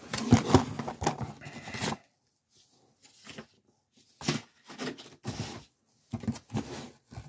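Cardboard box being opened by hand: the lid's tab and flaps scraping and tearing against the cardboard. The rustling is busiest for about the first two seconds, then comes in short scattered bursts.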